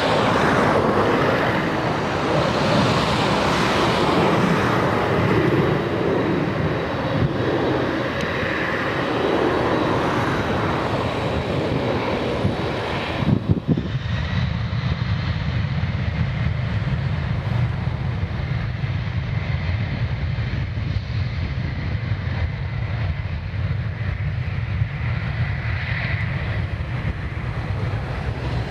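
Boeing 767-300ER jet engines at takeoff thrust, a loud steady rush. About halfway through it cuts suddenly to a duller, lower rumble.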